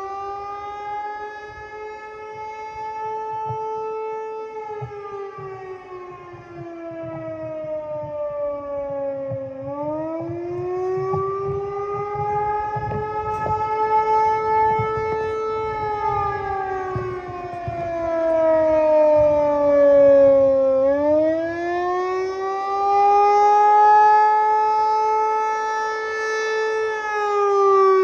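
Outdoor tornado warning siren sounding a wailing tone in a siren test. Its pitch rises, holds high for a few seconds, then falls, repeating about every eleven seconds.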